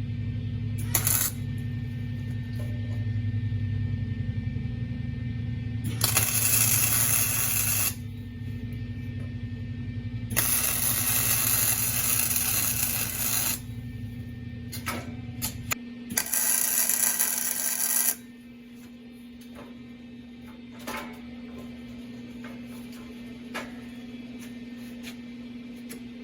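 Short bursts of MIG welding: three runs of harsh crackling hiss, about two, three and one and a half seconds long, with a few sharp clicks between them, over a steady electrical hum.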